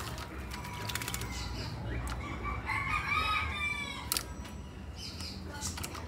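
Crested myna bathing in a plastic bowl of water, with short splashes as it dunks and flaps its wings. About two seconds in, a rooster crows once, a call that rises and then falls over about a second and a half.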